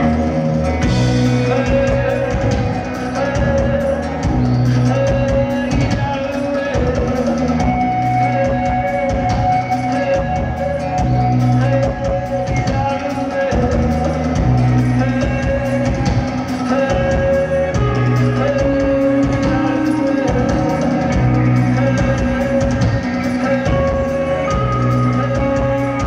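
Live rock band playing: electric guitars, bass and drum kit, with a male lead voice singing over them.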